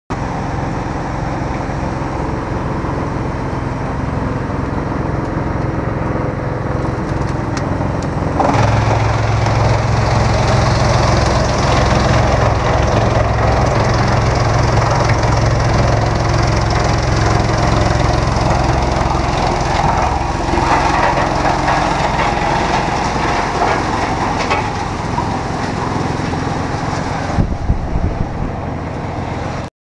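GX2113 drum wood chipper running with a steady low hum. About eight seconds in it gets louder and noisier as wood is fed through and chipped, easing off near the end with a few sharp knocks.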